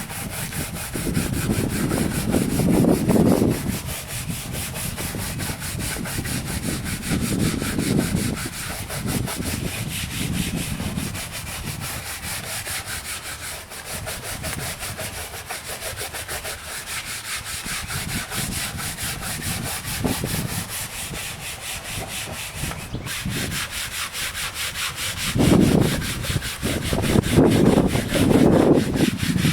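Rapid back-and-forth scrubbing of plastic vehicle trim soaked in degreaser, a steady rubbing that grows heavier for stretches, most strongly near the end.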